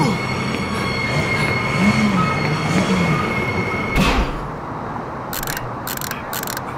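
San Francisco cable car rolling along its track with a steady high-pitched wheel squeal over a rumbling run, cut off abruptly about four seconds in. A quieter stretch follows, with four short hissing bursts near the end.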